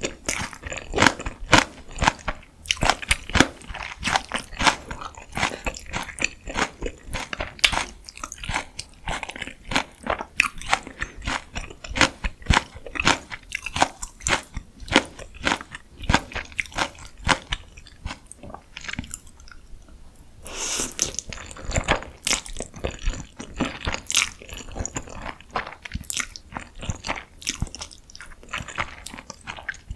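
Close-miked bites and chewing of crispy deep-fried food, a dense run of irregular crunches with no pause.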